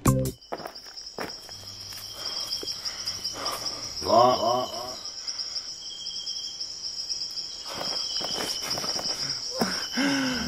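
Insects chirring steadily in a continuous high, finely pulsing drone. A short wavering call rises over it about four seconds in.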